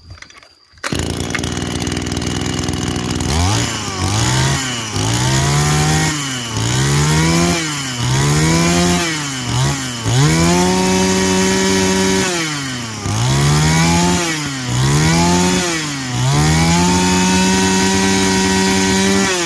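Small two-stroke brush-cutter engine head starting about a second in, then revved up and let back down to idle by hand about ten times. Several of the revs are held at high speed for two or three seconds.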